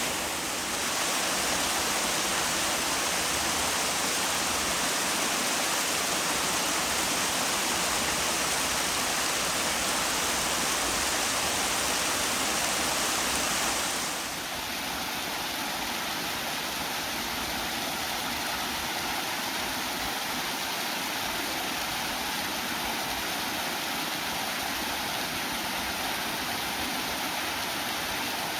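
Running water rushing steadily, a dense hiss. About halfway through it changes abruptly to a slightly quieter, thinner rush, as from a different stretch of water.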